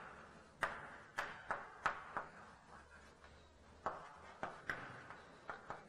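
Chalk writing on a blackboard: about a dozen faint, irregular sharp taps as the chalk strikes the board.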